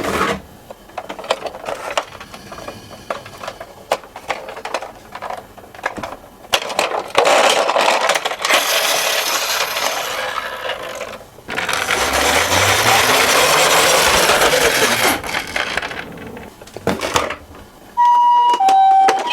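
Toy minicars clattering and rolling down a slope: scattered clicks and knocks, then two long stretches of rolling rumble. Near the end the toy ambulance's electronic siren starts, alternating between two tones.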